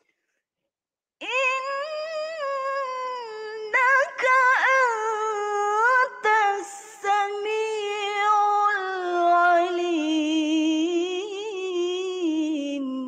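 A woman's solo Qur'an recitation in the melodic tarannum style, starting about a second in: one long, ornamented melismatic phrase with a few brief breaks, gliding slowly downward in pitch toward the end.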